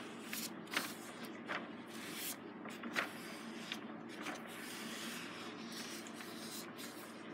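Paintbrush strokes rubbing paint onto paper, a soft scratchy brushing with a few brief, sharper swipes.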